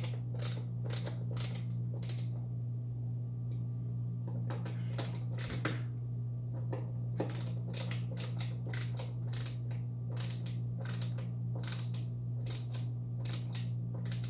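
Hand screwdriver turning and tightening a screw in a Onewheel Pint's rail to fasten a Float Plate Solo: runs of quick sharp clicks, a few a second, with a pause about two to four seconds in.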